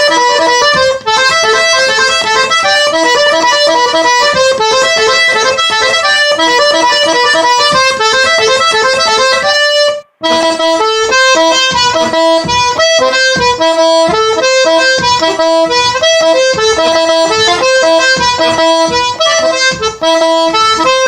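Diatonic button accordion tuned in G–C playing a quick merengue instrumental passage, fast treble runs over rhythmic bass notes. The playing breaks off for an instant about ten seconds in, then carries on.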